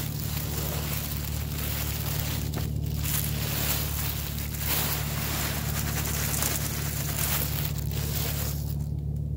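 Used cat litter being poured from a plastic litter box into a plastic grocery bag: a steady rush of granules with the bag crinkling, dipping briefly about three seconds in and stopping near the end.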